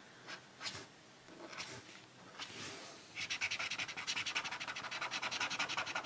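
Paint marker rubbing and scratching on watercolour paper as a border is coloured in black, in faint, short strokes. About three seconds in, a dog starts panting close by, a quick even rhythm that is louder than the pen.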